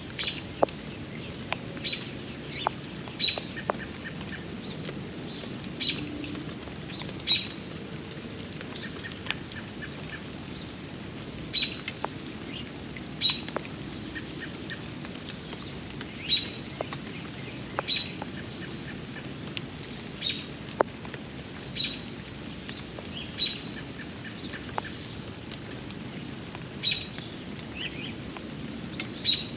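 Steady rain around a backyard pond, with a bird repeating a short high chirp every one to three seconds. Scattered sharp drips sound through it.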